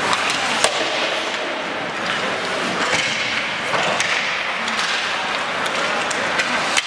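Ice hockey game in play: a steady wash of skates on the ice broken by a few sharp clacks of stick and puck, the loudest about half a second in and another near the end, with faint voices in the background.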